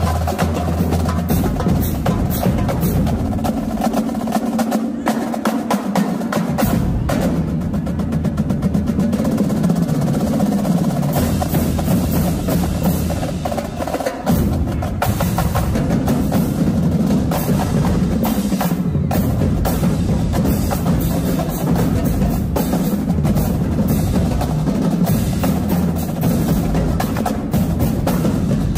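Marching drumline playing a cadence: rapid snare-drum strokes lead over multi-tenors and bass drums. The bass drums drop out for a few seconds about three seconds in, then come back.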